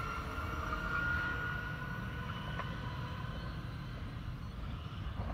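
S-Bahn electric multiple unit moving away, its traction motors giving a high whine that rises slightly and then fades out after about two seconds, over a steady low rumble.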